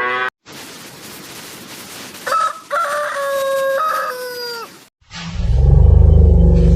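A rooster crowing once, a cock-a-doodle-doo in a few pitched steps over a hissy background. After a short gap, a much louder, deep, low-pitched animal call starts near the end.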